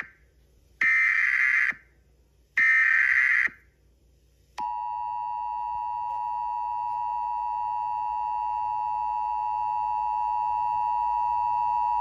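Emergency Alert System tones: two harsh, buzzy data-header screeches about a second long each, then, about four and a half seconds in, the steady two-tone EAS attention signal starts and holds.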